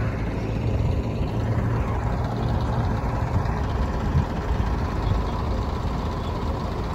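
Diesel engine of an old Volvo bus running at low speed as it moves past, a steady low drone.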